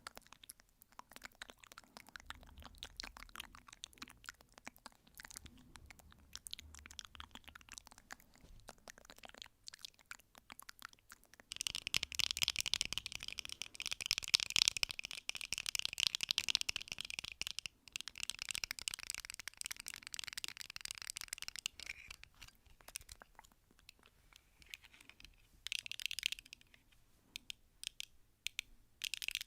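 Rapid ASMR tapping: a dense run of fast clicks that grows much louder and thicker for about ten seconds in the middle, then thins out again, with a few short louder flurries near the end.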